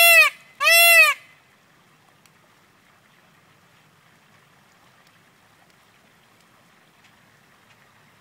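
Indian peafowl (peacock) giving two loud wailing calls in quick succession, each rising and then falling in pitch over about half a second, within the first second or so.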